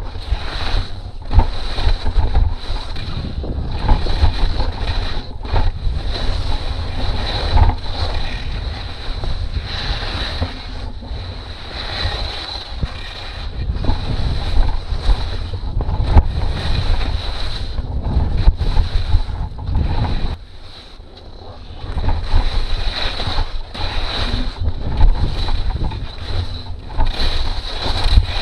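Wind rumbling and buffeting on a body-worn action camera's microphone during a fast ski descent, with skis scraping and hissing over the snow in irregular strokes. It drops off for about a second and a half around two-thirds of the way through.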